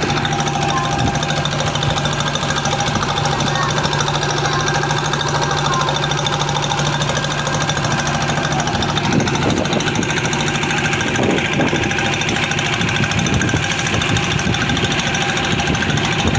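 Engine of a motorized fishing boat running steadily at an even speed, a loud, constant mechanical knocking drone.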